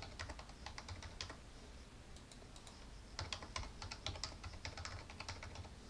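Faint typing on a computer keyboard: a run of quick keystrokes, a pause of about two seconds, then a second run.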